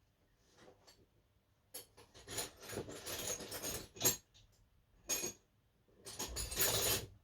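Small metal tools and parts clinking and rattling as they are handled, in three bursts of clatter: a long one of about two seconds, a short one, then another about a second long near the end.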